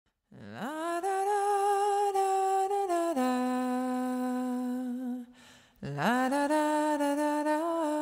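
A single voice humming a slow, wordless tune. It swoops up into a long held note, steps down to a lower one, breaks off briefly about five seconds in, then swoops up again into another held note.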